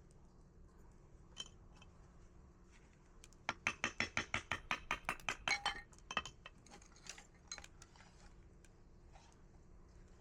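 A quick run of about a dozen light, hard clinks over two seconds, like small dishes or utensils being knocked together, with a few scattered single clicks before and after.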